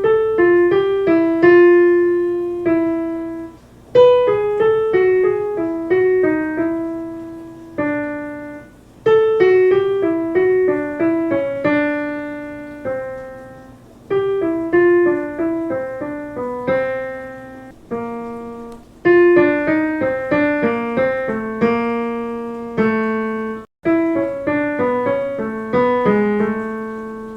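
Piano playing a vocal warm-up accompaniment: descending five-note scale runs starting around C5, each ending on a held note over a held bass, repeated about every five seconds.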